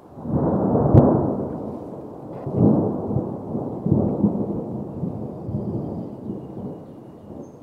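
Distant aerial fireworks booming: several rolling, echoing booms, with a sharp crack about a second in, fading toward the end.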